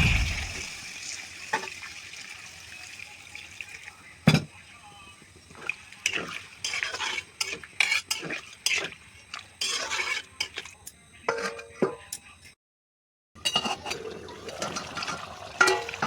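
Metal spoon stirring curry in a cooking pot, with irregular clinks and scrapes against the pot. There is a brief dead-silent gap about twelve seconds in.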